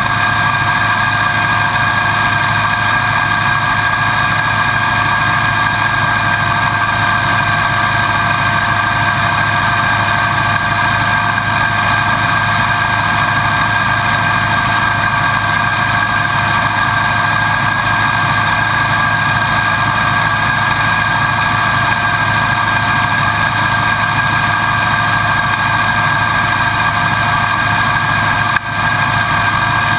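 A steady electrical hum and hiss that holds one pitch throughout, with a brief dropout near the end.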